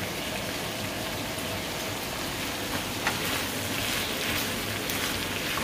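Diced chayote sizzling gently in a frying pan, cooking in a little oil and the water it has released. About three seconds in there is a light knock, then a wooden spoon stirs through the pieces and the sizzle briefly grows louder.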